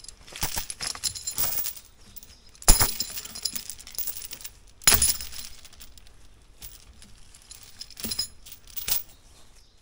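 Steel chain clinking and jangling in a series of short rattles as a log is chained up to an ATV log arch. The loudest clanks come about three and five seconds in.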